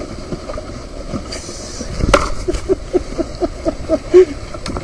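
Oar raft being rowed: a sharp knock about two seconds in, then a quick run of short squeaks from the oar gear, over a steady hiss of wind and water.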